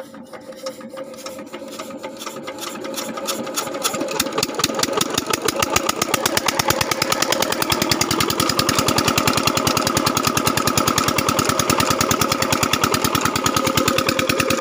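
12 hp single-cylinder diesel irrigation-pump engine just started, running with a fast, even knocking beat that grows louder over the first six seconds or so, then settles into a steady run.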